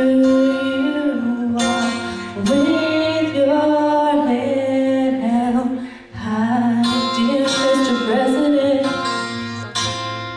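Woman singing a slow ballad over guitar accompaniment, in phrases with long held notes and a short break between phrases about six seconds in.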